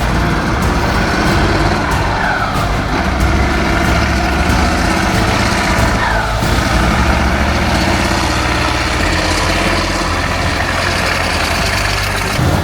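Heavy truck engine running steadily and loudly, with the rumble of an off-road rally truck at work.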